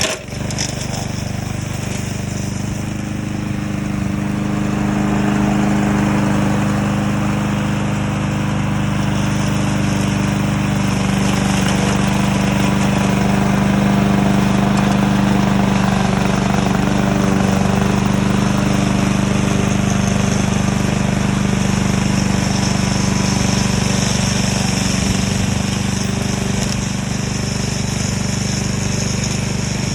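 Remote-control lawn mower's engine running steadily, a constant drone with no change in speed.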